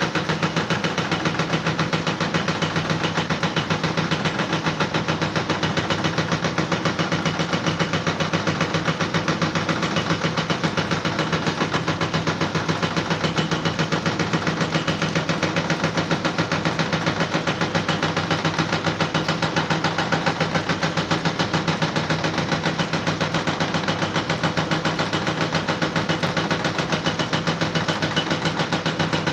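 An engine running steadily at a constant pitch, with a fast, even pulse.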